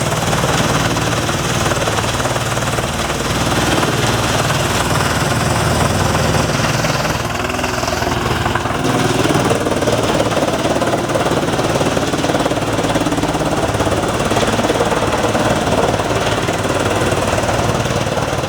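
Large wood chipper running, a steady loud engine drone mixed with dense mechanical noise from the machine at work. The engine's pitch shifts about seven seconds in.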